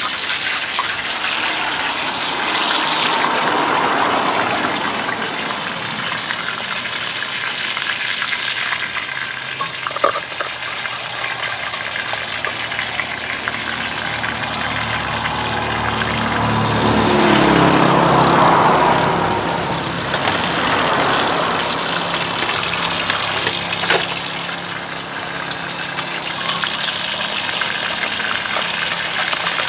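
Hot oil sizzling steadily in a pot of frying battered lobster. Just past the middle, a motor's drone swells and fades.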